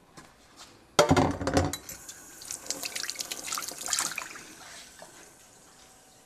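A sudden loud clatter about a second in, then about two seconds of hissing, splashy noise full of small ticks that fades out a little after four seconds.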